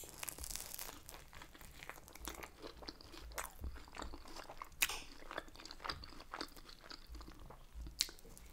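A person biting into and chewing a beef-dripping Yorkshire pudding filled with sweetcorn mash, sausage and gravy: soft crunches and wet mouth clicks, with two sharper crunches at about five and eight seconds in.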